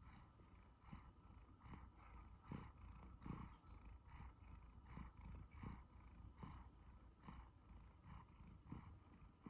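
A one-year-old Siberian forest cat purring contentedly while being stroked: a soft, low, continuous purr that pulses about twice a second.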